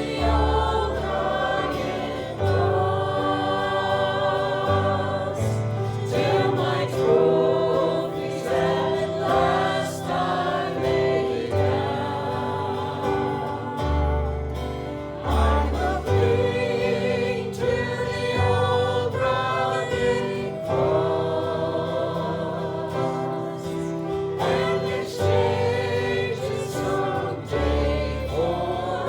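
A group of voices singing a gospel hymn together with held notes, over instrumental accompaniment with a bass line that moves every second or two.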